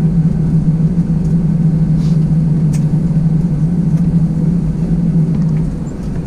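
Airbus A320-200 cabin drone from the engines and airflow on the ground after landing, a loud steady hum that drops slightly in pitch near the end.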